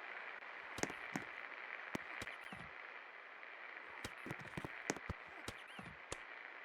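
Ceiling fan running with a steady whir, broken by irregular sharp clicks and ticks.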